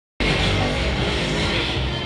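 Music playing steadily, cutting in a fraction of a second in as the recording starts.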